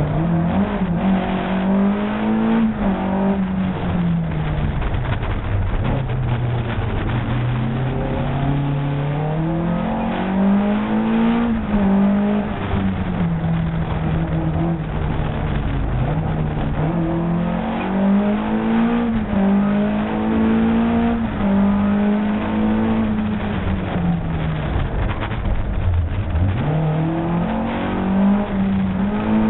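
Opel Kadett C race car's engine, heard from inside the cabin, revving up and dropping back again and again as it is driven hard through a slalom course, its pitch rising and falling every few seconds.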